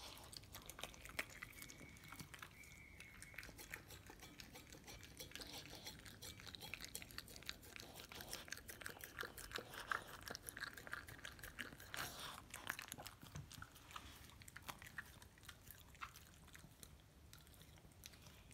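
Chihuahua eating egg from a stainless steel bowl: faint wet chewing and licking, with many small irregular clicks.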